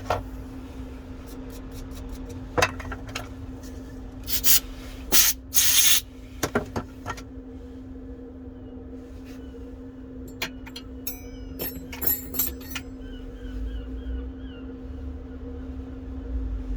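Cleaning a phone's charging port: small tools clicking and scraping on the handset, with two short loud hissing bursts about four and a half and five and a half seconds in, over a steady low hum.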